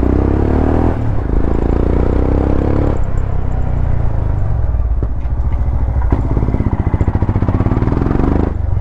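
Royal Enfield Himalayan's single-cylinder engine through an aftermarket Power Race slip-on exhaust, accelerating through the gears. The pitch climbs twice in the first three seconds, then settles into a lower, pulsing note.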